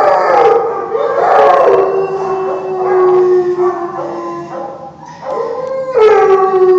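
Dogs howling: long howls that slide down in pitch and settle into a held note, several voices overlapping, with a fresh howl starting about six seconds in.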